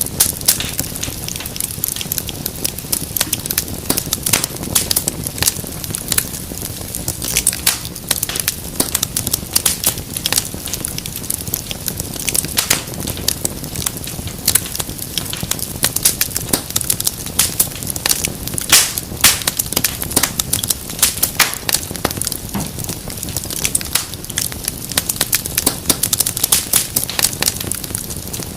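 Fireplace fire crackling: many irregular sharp pops and snaps over a steady low rush.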